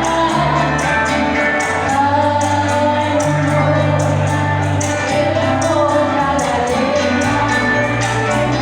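A woman singing a Spanish-language song over an accompaniment of long held bass notes, her melody gliding up and down.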